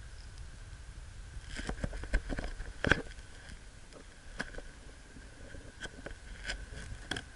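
Water splashing and slapping against the hull of a plastic sit-on-top kayak being paddled through small wind-driven waves, in irregular splashes and knocks, the loudest about three seconds in.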